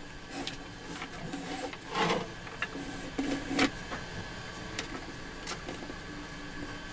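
Handling noise from taking apart an old sound system: scattered light clicks, rubs and scrapes as hands and a knife work on the glued parts, with one louder scrape about two seconds in.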